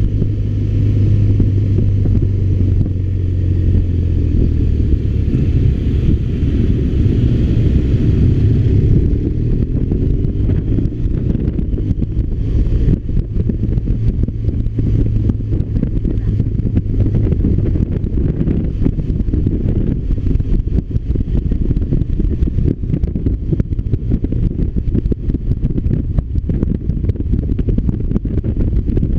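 BMW R1200RT's flat-twin boxer engine running under way, a steady low engine note. For the first nine seconds or so a faint hiss sits above it, then fades.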